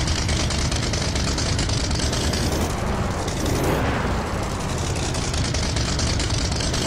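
Motor vehicle engines running loudly with a rapid, rough pulse. A vehicle drives past close by about halfway through.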